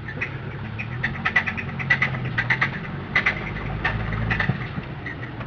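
1995 Volvo 850 T5R's turbocharged inline-five running with a rapid, uneven knocking clatter over a steady low hum, which the owner takes almost definitely for a spun rod bearing.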